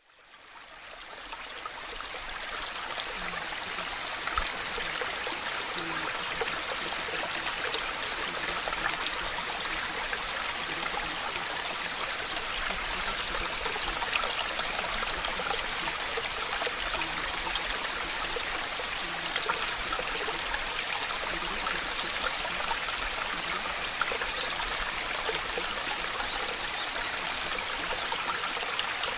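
Steady rushing water noise, an even hiss that fades in over the first two seconds and then holds level.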